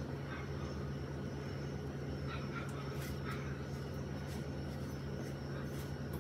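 Faint rustling and light taps of hands rolling croquettes in breadcrumbs in a metal bowl, over a steady low hum.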